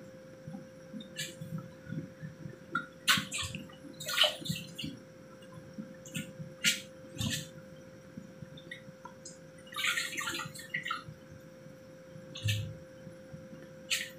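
Broth boiling hard in a wide wok, a steady bubbling and gurgling broken by scattered sharp pops and crackles, with a faint steady hum underneath.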